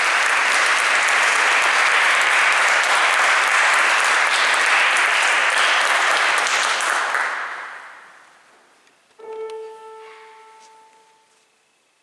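Audience applauding steadily, dying away about eight seconds in. About a second later a single note on a Steinway grand piano is struck and left to ring and fade.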